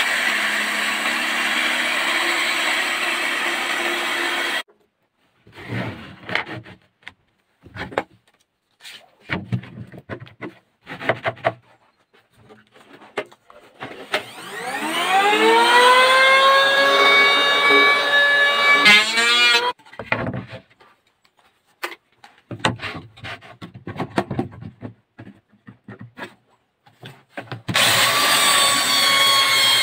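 A jigsaw cuts through a hardwood board. Then come short scattered bursts of tool noise, and a power tool motor that winds up in pitch to a steady whine and stops about 20 seconds in. Near the end a handheld belt sander runs against the wood.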